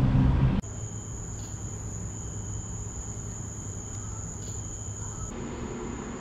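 Night insects trilling, a steady high-pitched continuous tone. For the first half-second a louder low rumble of car traffic plays, then it cuts off abruptly.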